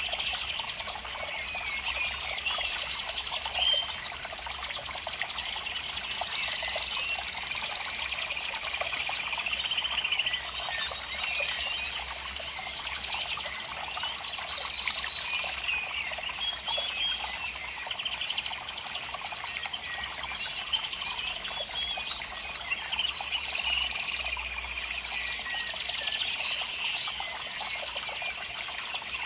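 Many small birds chirping and trilling at once, a dense chorus of fast repeated high notes with louder bursts now and then.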